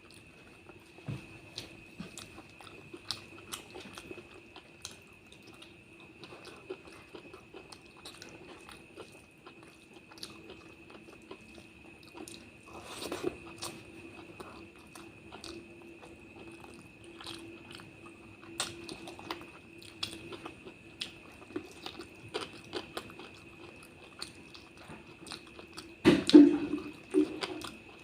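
Close-miked chewing and biting of a curry and rice meal: wet smacks and small crunches, growing louder near the end, over a faint steady high-pitched whine.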